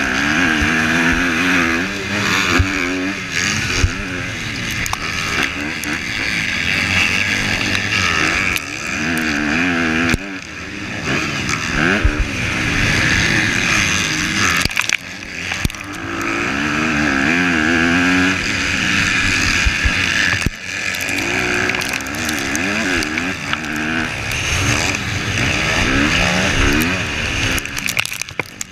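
Honda CRF250R four-stroke single-cylinder motocross engine heard from on board the bike, revving up and down with the throttle and briefly dropping off a few times. A few sharp knocks stand out over the engine.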